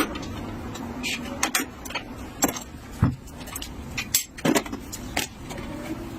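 Metal tools and parts clinking and knocking in a series of about eight sharp hits, over a steady low hum.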